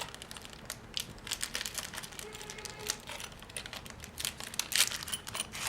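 Plastic and paper packaging crinkling and rustling as small items are handled, with scattered quick clicks and crackles.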